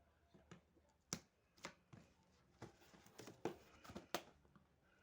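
Faint handling of a cardboard box and its packaging: a scattered series of light taps, clicks and rustles at the start of an unboxing.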